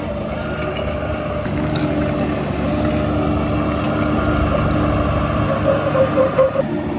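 Heavy diesel earthmoving machinery running steadily under load. The engine grows a little louder about two seconds in, and runs unevenly for a moment near the end.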